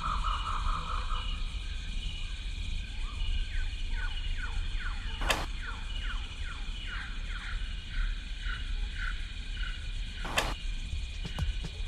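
Two sharp snaps of a bowstring loosing an arrow, about five seconds apart, over forest ambience in which a bird repeats a short falling note about twice a second.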